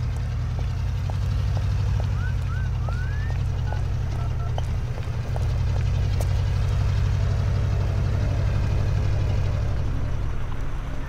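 A pickup truck's engine runs with a steady low rumble. A man gives a taunting whistle, several short rising whistles about two to three seconds in. Footsteps click about twice a second and stop about four seconds in.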